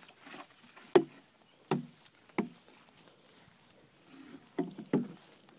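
A series of short, sharp knocks: three evenly spaced about a second in, the first the loudest, then two more near the end.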